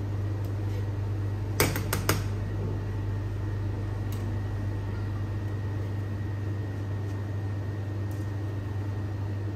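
Steady low hum of a commercial kitchen's extractor hood fan. About two seconds in, a ladle clinks three times against a stainless steel stockpot.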